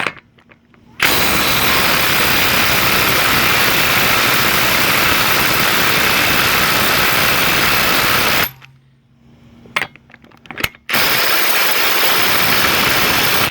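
Ridgid Octane R86011 half-inch mid-torque cordless impact wrench hammering on a rusted 30 mm axle nut, breaking it loose. It runs for about seven seconds, stops with a few clicks, then runs again for a few seconds.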